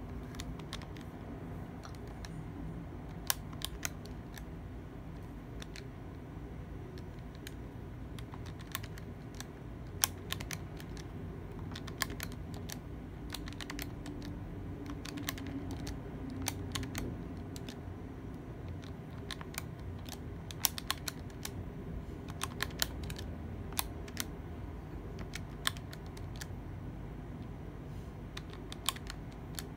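Keys of a Casio fx-82ES PLUS scientific calculator being pressed one after another: irregular sharp plastic clicks, some in quick runs, over a steady low hum.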